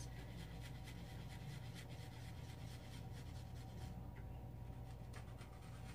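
Faint scratching of a Copic alcohol marker's nib stroking over drawing paper in repeated short strokes while colouring in, over a low steady hum.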